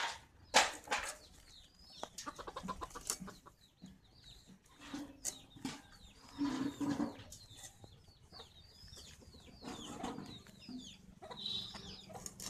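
Domestic chickens clucking, with many short, high, falling chirps throughout. Two sharp knocks come right at the start.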